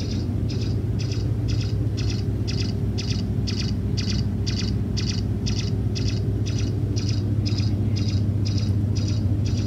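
Biolase Epic diode laser sounding its emission tone while firing: short high-pitched beeps repeating evenly a little over twice a second, over a steady low hum.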